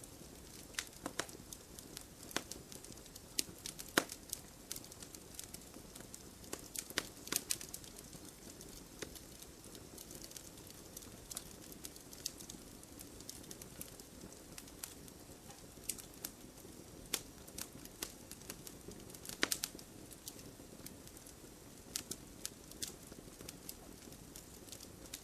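Wood fire crackling in a fireplace: irregular sharp pops and snaps over a faint steady hiss, with louder pops about four seconds in and again near twenty seconds in.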